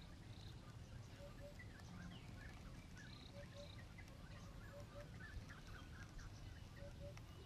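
Faint birds calling: a low two-note call repeated every couple of seconds, with scattered higher chirps.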